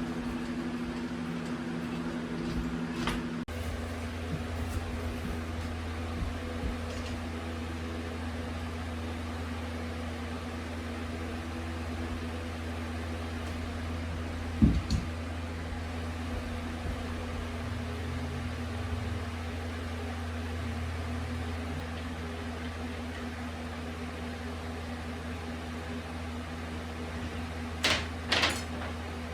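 Steady machine hum, a lower hum joining it a few seconds in, with a single sharp knock about halfway through and a few clinks near the end.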